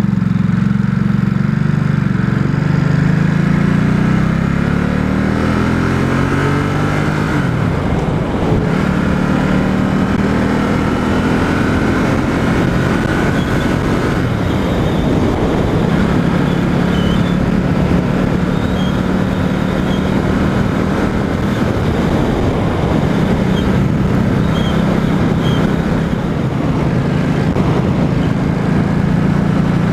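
Ducati SuperSport S's 937 cc L-twin engine on a ride: it holds a steady note, then rises in pitch under acceleration from about two seconds in and drops back near seven seconds. After that it settles into steady running.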